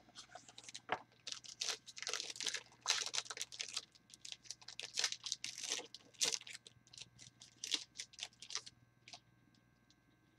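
A 2014 Topps Museum Football cardboard mini box being opened and its trading cards slid out and shuffled by hand: a quick run of papery rustles, scrapes and clicks of cardboard and card stock that dies down near the end.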